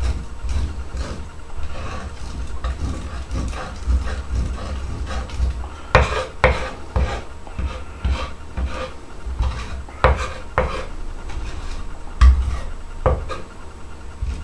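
Chef's knife blade pressed flat and scraped repeatedly across a wooden cutting board, grinding garlic and coarse salt into a paste: a run of rasping scrapes with several sharper knocks of the blade on the board.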